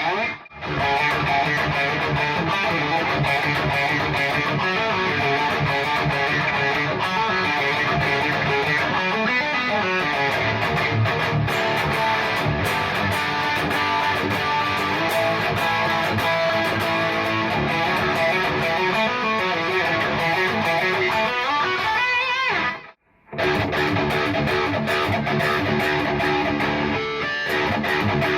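PRS SE CE 24 electric guitar being played, a continuous run of notes and chords. The sound cuts out briefly twice, just after the start and about 23 seconds in.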